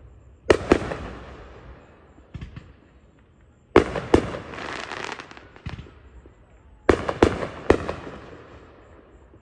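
Aerial fireworks bursting overhead: three groups of sharp bangs, about three seconds apart, of two, two and then three bangs. Each group trails off in a rolling echo, with a few fainter pops in between.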